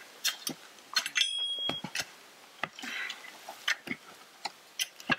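Metal garden rake scratching and scraping through dry plant litter and soil in irregular strokes. A brief high whistle sounds about a second in.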